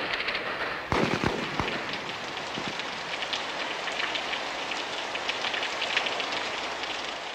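Rain falling as a steady hiss with a light patter. A few dull thumps come about a second in.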